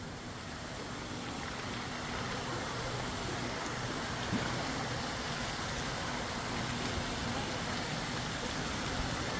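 Steady rushing noise, rising a little over the first two seconds and then holding even, with a faint low hum and a single small tap about four seconds in.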